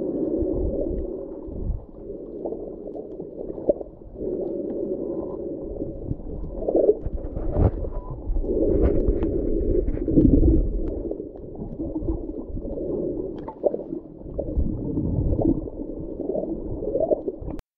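Muffled underwater sound of surging water with gurgles and a few sharp knocks, coming in swells; it cuts off suddenly near the end.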